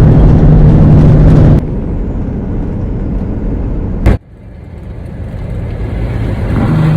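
Peterbilt 387 semi truck running, a steady engine drone with road noise. It drops abruptly a second and a half in, a sharp click comes about four seconds in, and the drone builds back up near the end.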